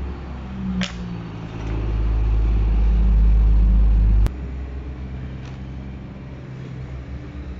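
A steady low rumble that swells over a couple of seconds, then cuts off abruptly about four seconds in, with a single sharp click about a second in.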